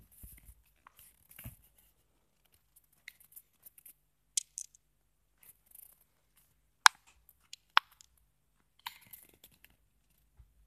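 Handling noise from a handheld camera: scattered soft rustles and a few sharp clicks, the two loudest about seven and eight seconds in.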